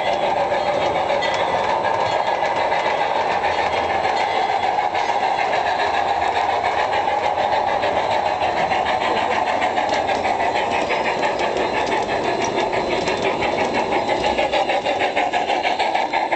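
Large-scale (G gauge) model train running on its track: a steady motor whir with a rapid, regular clicking of the wheels on the rails, most distinct near the end as the coaches pass close.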